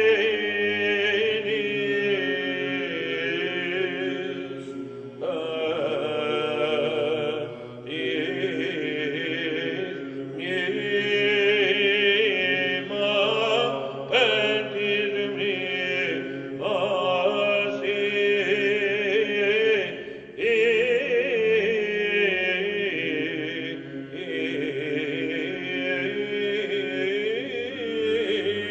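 Byzantine chant sung by male voices: a melody in long phrases with brief breaks between them, over a steady held low drone (the ison).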